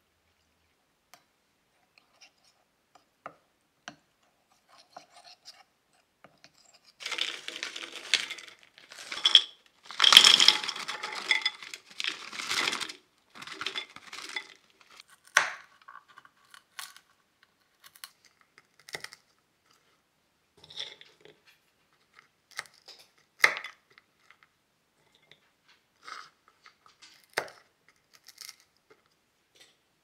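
Knife chopping pecans on a wooden cutting board, with sharp taps every second or two. Early on there are several seconds of louder, denser rustling and scraping.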